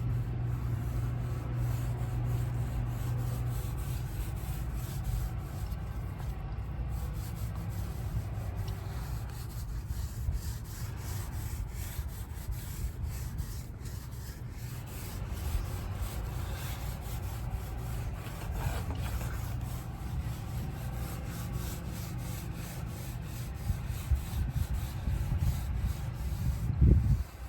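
Foam roller rolled back and forth over a teak boat deck, spreading teak oil: a steady rubbing, with a brief louder knock near the end.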